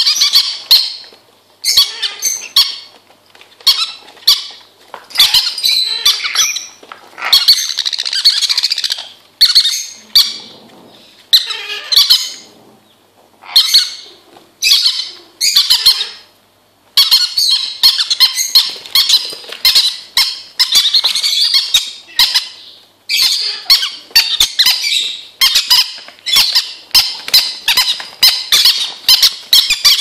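Young Timneh grey parrots squawking over and over in short bursts while eating, with many sharp clicks mixed in.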